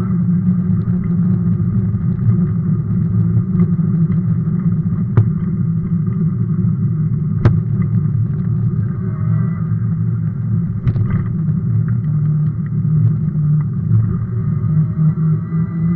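Steady low rumble of an electric fat bike rolling over rough, cracked and patched asphalt, with a few sharp knocks as it jolts over cracks. The loudest knock comes about seven and a half seconds in.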